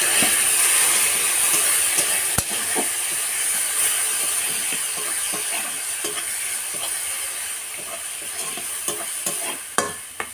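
Water poured into a hot wok of fried onions and ground spices, sizzling loudly at first and slowly dying down as the spice paste braises. A spatula scrapes and taps against the pan now and then.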